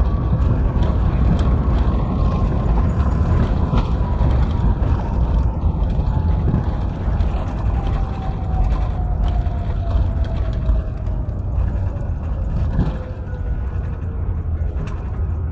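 Cabin noise of an Airbus A350-900 on its landing roll, with spoilers raised: a heavy low rumble from the runway and the wing, and a whine that falls steadily in pitch as the aircraft slows. Scattered light rattles and clicks are heard from the cabin.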